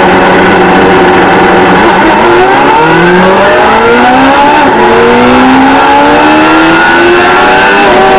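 Kawasaki ZXR400's inline-four engine at high revs, holding a steady note at first, then climbing in pitch from about two seconds in. The pitch drops sharply at an upshift near five seconds, then climbs again until near the end.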